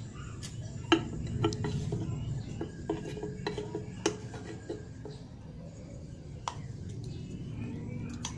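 Taps and clinks of a metal paint-remover tin and a plastic toothbrush as paint remover is scooped from the tin into a plastic bowl. A run of sharp knocks comes from about one to five seconds in, with a few more later, over steady low background noise.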